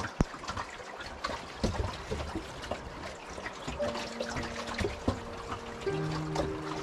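River water trickling and lapping against the aluminium boat hull, an even rush with small irregular clicks. A faint steady hum comes in about four seconds in and shifts in pitch near the end.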